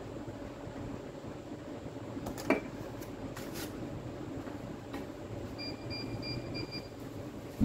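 Steady low hum of room noise with one light click about two and a half seconds in, typical of a small part being set down on the bench mat. Near the end a faint high beep repeats about five times.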